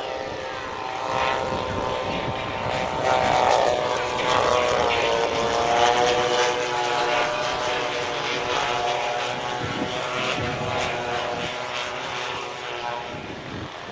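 Two-stroke petrol engines of a pair of large radio-controlled OV-10 Bronco models, each with twin 35cc engines, buzzing in flight. The engine note bends down and up in pitch as the planes pass and manoeuvre, loudest about six seconds in, then fading.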